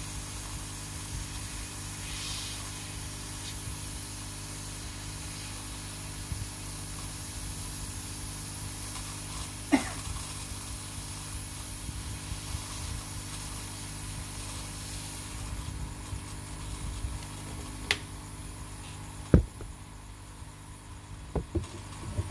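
Steady hiss of air from a hot-air handpiece aimed at a circuit board, with a low hum underneath; the hiss stops about two thirds of the way in. A few sharp knocks follow, the loudest about three quarters of the way in.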